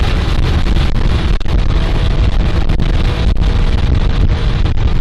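Porsche 997.1 GT3 at about 90 mph, heard from inside the car: a loud, steady low rumble of its 3.6-litre flat-six engine and the road, with heavy wind noise buffeting the microphone.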